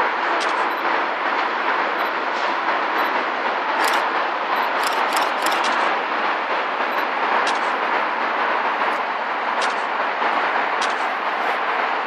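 A locomotive-hauled train running past on the riverside tracks, heard from a distance in a steady wash of traffic noise, with a few sharp clicks and rattles, most of them about four to six seconds in.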